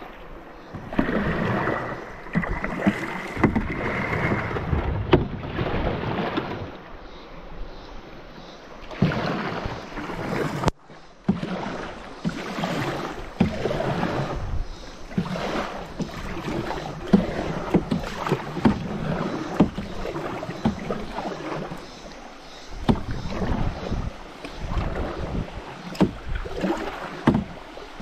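Paddle strokes and water splashing around an open canoe moving through shallow riffles, with irregular knocks and scrapes of the hull and paddle on a low, rocky river bottom.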